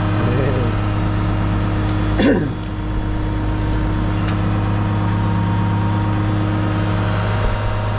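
Loading shovel's engine idling steadily close to the microphone, with a brief voice-like sound about two seconds in.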